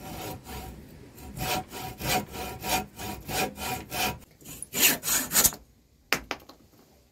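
Hacksaw cutting through the end of an acacia wood handle held in a vise, in even back-and-forth strokes about two a second. The sawing stops about five and a half seconds in, followed by a short scrape.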